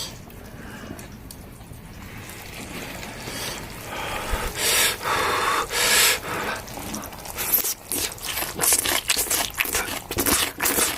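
Water splashing and dripping, mixed with scrapes and clicks that come thicker and faster in the second half.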